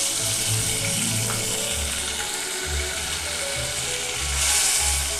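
Chopped tomato sizzling in hot oil with spluttering mustard seeds in a steel pot; the sizzle swells about four and a half seconds in.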